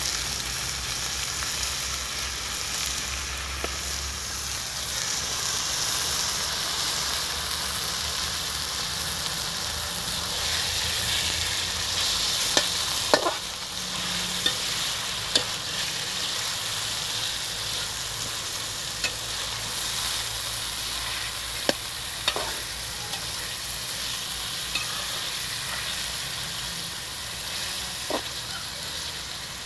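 Raw meat and onions sizzling in hot oil in an aluminium karahi while being stirred with a metal slotted spoon, with a few sharp clinks of the spoon against the pan.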